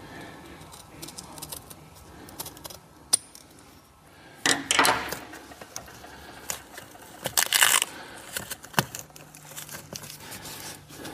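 Hands fitting a leather bolster protector over a sport bucket seat's side bolster: light clicks, small rattles and scrapes of the strap and its fastening, with two louder rustling scrapes, one about four and a half seconds in and one about seven and a half seconds in.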